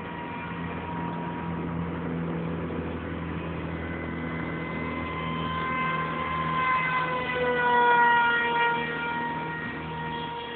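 Electric motor and propeller of a battery-powered foam RC jet whining steadily overhead. Near eight seconds in, the whine grows louder and slides down in pitch.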